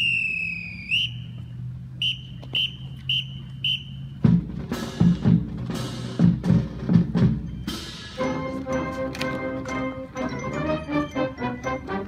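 High school marching band's whistle cue: one long blast falling off at its end, then four short blasts, followed by the drumline's heavy drum strokes. About eight seconds in, the full band comes in playing over the drums.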